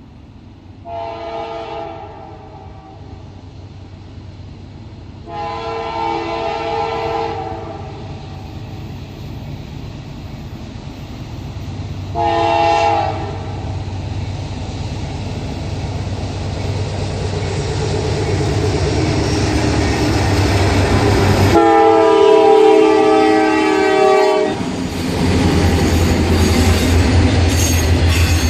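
Approaching locomotive sounding its multi-tone air horn in four blasts: short, long, short, and a final longest one. This is the long-long-short-long pattern blown for a grade crossing. A low rumble of engine and wheels on rail grows steadily louder as the train draws near.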